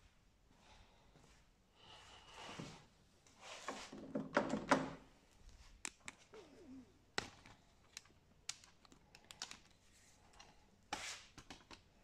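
Light handling noise: rustling with a scatter of clicks and knocks, loudest in a cluster about four to five seconds in.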